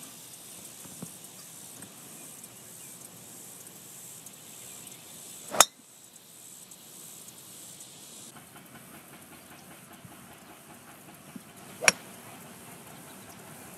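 Two golf shots, each a single sharp impact of club face on ball: a driver strike about five and a half seconds in and a 4-hybrid strike near the end, over a faint steady hiss of outdoor background.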